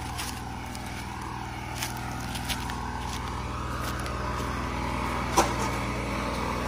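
A steady engine drone that grows slowly louder, with a few sharp clicks and the crunch of footsteps on dry leaves and gravel.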